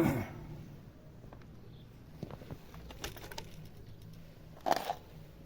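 Light clicks and rattles of small parts and wires being handled, with a louder knock near the end.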